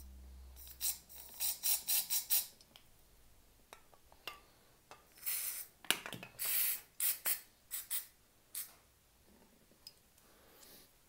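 Aerosol brake cleaner hissing from the can in a series of short squirts into a carburetor's passages, with two longer blasts a little past the middle.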